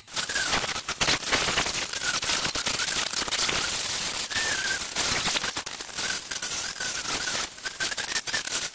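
Electric angle grinder with a sanding disc sanding the face of a wooden slab: a wavering motor whine over a dense, crackling rasp of the disc on the wood.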